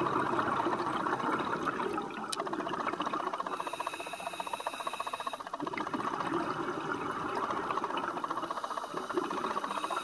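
Scuba regulator breathing underwater: exhaled bubbles rumble out in two long bursts, with a quieter, thinly whistling inhale through the regulator between them.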